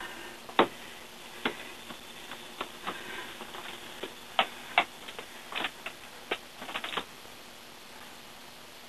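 Irregular sharp clicks and light knocks from a rollator walker being handled and shifted about on a concrete step, about a dozen of them, the loudest about half a second in, stopping about seven seconds in.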